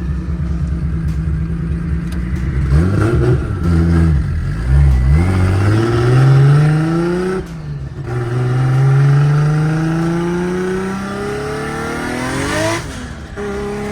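Loud Toyota 1JZ inline-six engine in a Nissan 350Z drift car, idling and then accelerating hard through the gears: the pitch climbs, drops at an upshift about halfway through, climbs again, and drops at a second shift near the end. It runs cleanly with no misfire after its ignition coils were replaced.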